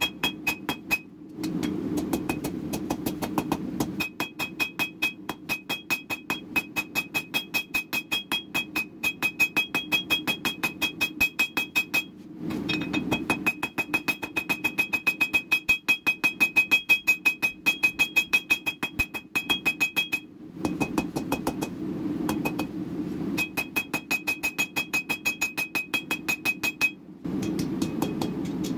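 Ball-peen hammer striking red-hot steel on an anvil in fast runs of several blows a second, the anvil ringing with a high steady tone. The runs stop briefly a few times, and a low steady hum sits under it all.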